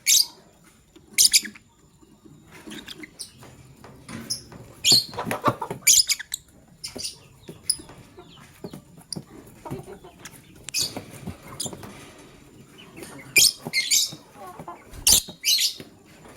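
Lovebirds chirping: short, sharp, high-pitched calls at irregular intervals, several coming in quick clusters.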